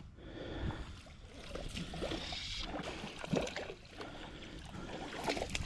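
Creek water gurgling, sloshing and splashing close by, with uneven bursts of splashing.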